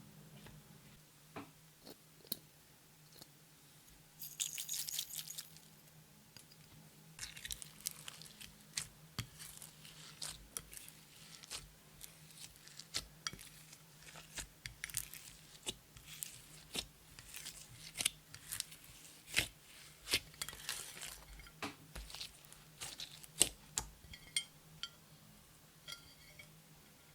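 Slime being squished and stretched by hand: a quiet run of many sticky clicks, pops and crackles, with a short hissy crinkle about four seconds in.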